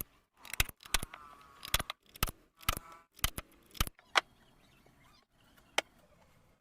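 A run of irregular sharp taps and knocks of hard objects, some with a brief ring, about a dozen over four seconds, then a single tap near the end.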